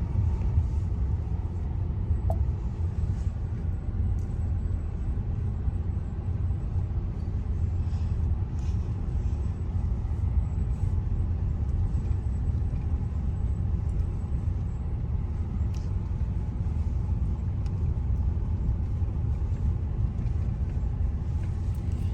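Steady low rumble of a vehicle driving along the road, heard from inside the cabin.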